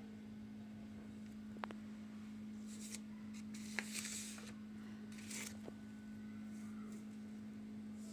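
Quiet rustling of drawing paper being handled, in three short stretches, with a few light clicks, over a steady low hum.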